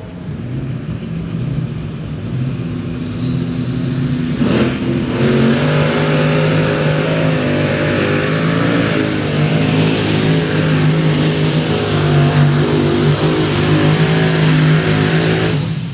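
A competition pulling tractor's engine running flat out under load while it pulls the sled, loud and steady. It builds over the first few seconds and then holds at full throttle.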